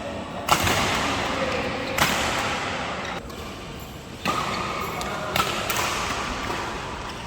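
Badminton rackets striking a shuttlecock in a rally or drill: four or five sharp hits about one to two seconds apart.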